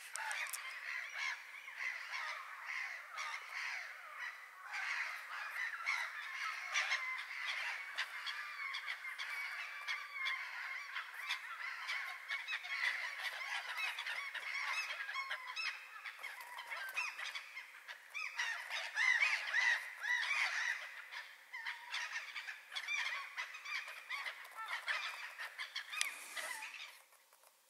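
A flock of birds calling over one another without pause, dense overlapping calls that fade out near the end.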